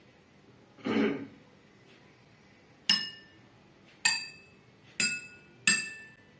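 Four water-filled drinking glasses, each holding a different amount of water, struck once each in turn: four sharp clinks about a second apart, each ringing on at its own pitch. A brief muffled noise comes about a second in, before the first strike.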